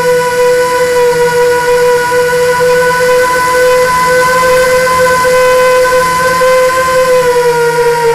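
Quadcopter drone's motors and propellers whining steadily, one high pitched hum with overtones, heard from the drone itself. The pitch sags slightly near the end.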